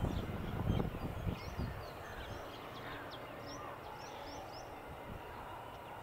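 Small birds chirping, a quick string of short high calls, over a low uneven rumble that fades after about the first second.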